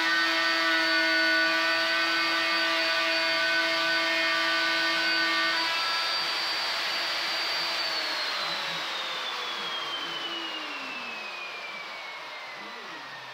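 Handheld plunge router with a dust-extraction hose running steadily while it routes the edge of a curved board. About halfway through it is switched off, and the machine whine winds down, falling slowly in pitch and fading.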